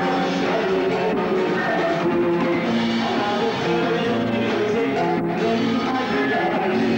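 Live band music: a man singing a melody into a microphone over electric guitar, with a drum kit, played continuously.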